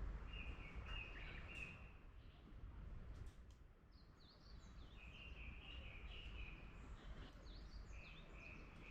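Songbirds singing in a forest: a warbled phrase comes three times (at the start, about five seconds in and near the end), with short high falling chirps in between. Under them runs a faint, steady low rumble of background noise.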